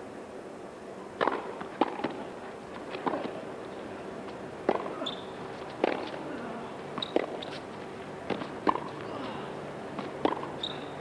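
Tennis rally: a ball struck back and forth by rackets and bouncing on the court, a string of sharp pops about once every half second to second.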